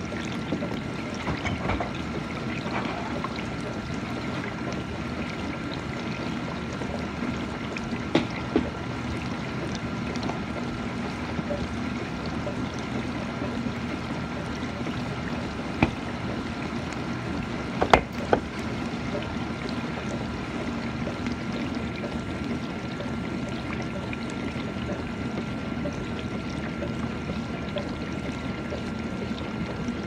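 GE dishwasher running mid-cycle: a steady rush of water inside the tub with a constant high motor hum. A few sharp knocks stand out, the loudest a little past the middle.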